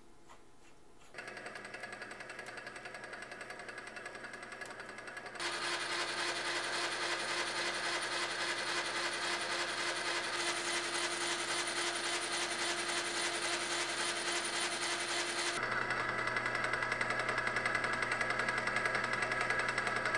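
Small metal lathe running and turning down a shaft: a steady, fast mechanical rattle that starts about a second in, gets louder about five seconds in and changes tone near fifteen seconds.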